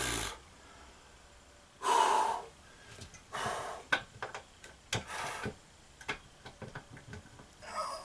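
A man's heavy breaths, four breathy exhales of effort a second or two apart, as he works overhead. Light clicks and taps of hands handling the ceiling fan's mounting hardware come in from about three seconds in.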